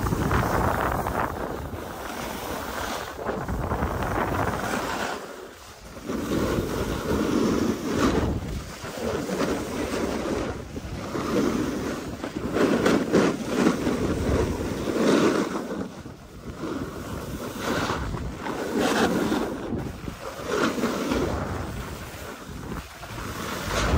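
Skis sliding and scraping over groomed, packed snow during a downhill run, swelling and fading with each turn, under wind buffeting the microphone. There is a brief lull about five seconds in.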